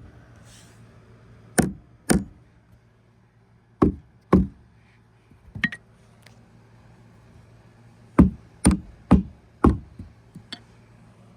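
A small hammer striking the heads of rusted deck bolts: about ten sharp blows in uneven groups, with a run of four quick blows about eight seconds in. Hitting the wasted heads hard is meant to break them off or loosen the bolts in the old plywood.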